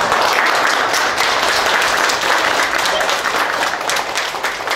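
A small group of adults and children clapping and applauding, a dense patter of hand claps that thins out near the end.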